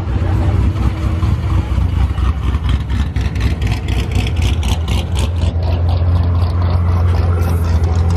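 A car engine idling loudly with a steady low note, pulsing rhythmically from about two to seven seconds in.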